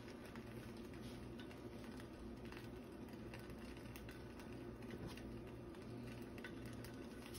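Faint, irregular crackling and ticking of a buttered grilled cheese sandwich frying in a stainless steel pan, over a low steady hum.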